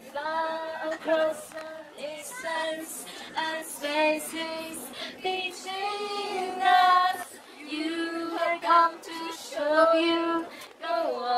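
A tour guide singing a song solo, one voice moving between long held notes.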